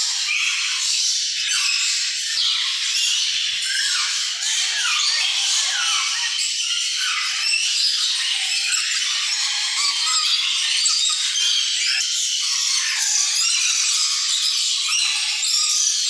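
Many caged birds chirping and chattering together, a dense, unbroken stream of short, high, overlapping calls.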